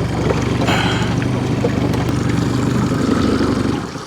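Boat motor running steadily at trolling speed, a low even hum that stops abruptly near the end.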